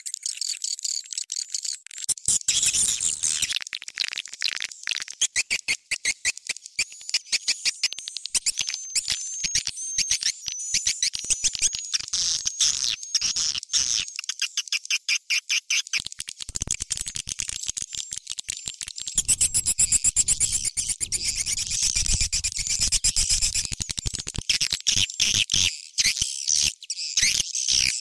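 Swiftlet call recording, edited with raised pitch and tempo, played as a lure sound to draw swiftlets into a swiftlet house: dense, rapid high-pitched chirping and twittering with fast clicks, and a wavering trill partway through.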